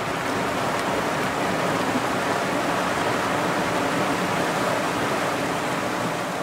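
Flash flood of muddy, debris-laden water rushing down a desert wash: a steady, loud rush of moving water.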